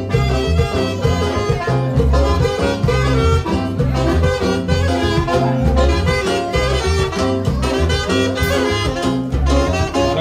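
Upbeat Latin dance music with brass and a heavy bass beat, played loud over a small party sound system.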